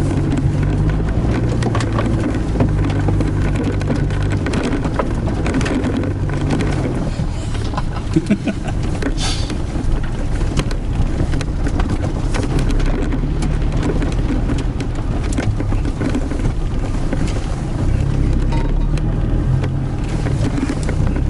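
Toyota Hilux engine running off-road, heard from inside the cab, its pitch shifting up and down with the throttle, with scattered knocks and rattles.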